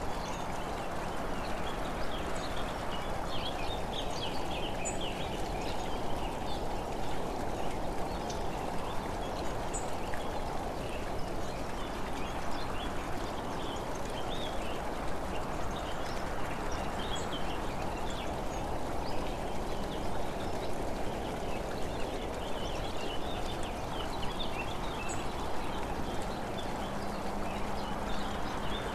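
Steady road and wind noise from a vehicle moving along an open road, with many short, high-pitched chirps scattered over it throughout.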